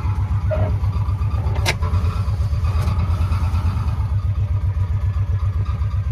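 Utility vehicle's engine running as it drives along, a loud, steady low pulsing heard from the seat. A single sharp knock about a second and a half in.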